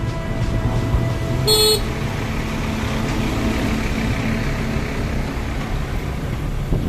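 City street traffic heard from a moving motorcycle: steady engine and road rumble, with one short vehicle horn toot about a second and a half in.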